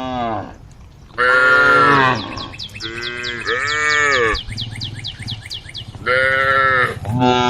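Cattle calling to the herd: several drawn-out, fairly high-pitched moos follow one another, each about a second long. A fast run of short high chirps, about six a second, sounds through the middle.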